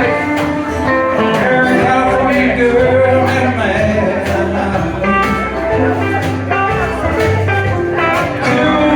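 Country band playing live: guitar over bass and a steady drum beat.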